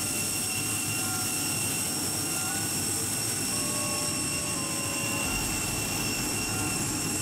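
Steady turbine whine and rush from the parked Boeing 747-400's auxiliary power unit, with several high, unchanging tones over the noise and a few fainter tones that shift in pitch now and then.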